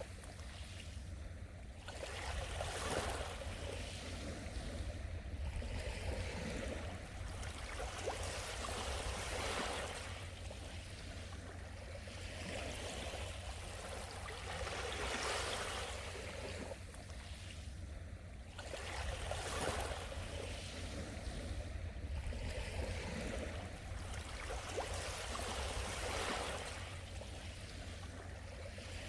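Sea waves washing onto the shore, a steady rush of surf that swells and falls back every few seconds.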